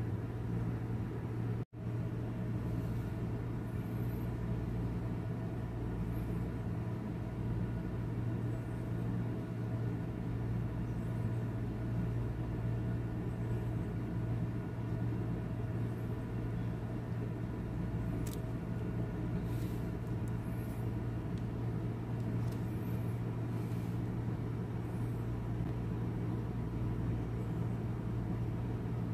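Steady low background hum. It drops out for an instant about two seconds in, and a few faint ticks come in past the middle.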